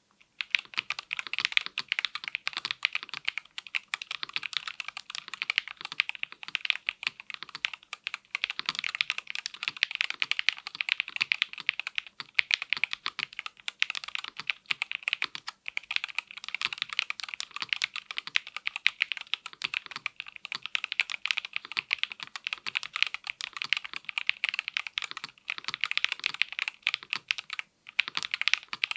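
Continuous fast typing on a NuPhy Field75 HE magnetic-switch (Hall effect) keyboard with Gateron magnetic white switches: a dense, unbroken run of keystroke clicks.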